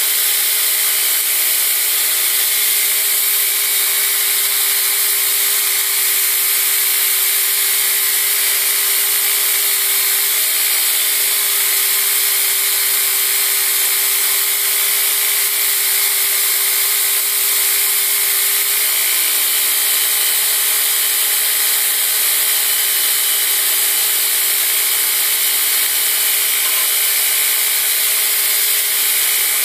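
Belt grinder running with a steel push-dagger blade pressed against the belt in a bevel jig, grinding steadily: a continuous hiss of abrasive on steel over the machine's steady tone, which shifts slightly a couple of times as the pressure on the blade changes.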